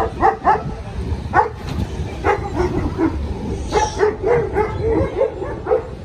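A dog giving a quick series of short, high yips and whines.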